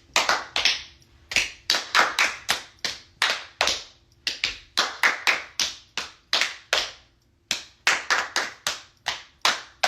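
Hands clapping in quick rhythmic groups, about three claps a second with short pauses between groups: a clap pattern being practised for a dance routine.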